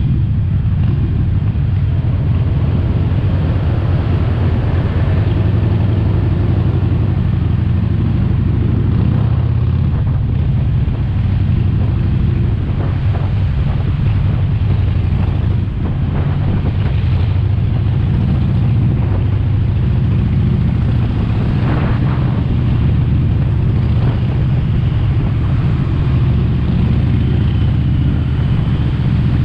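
Harley-Davidson Sportster Forty-Eight's 1200 cc air-cooled V-twin running steadily under way, a continuous low rumble without big changes in revs.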